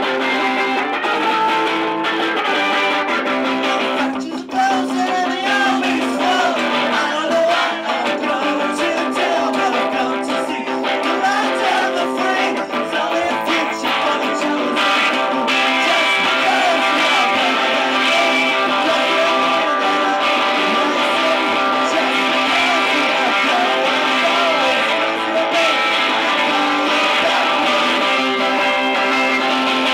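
Live amplified electric guitar, strummed chords ringing steadily, with a man's voice singing over it through much of the middle.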